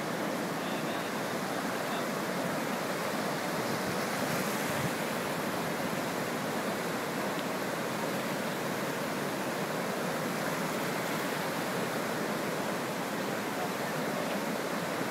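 Flash-flood creek water rushing across a flooded street in a fast torrent, a steady unbroken rush.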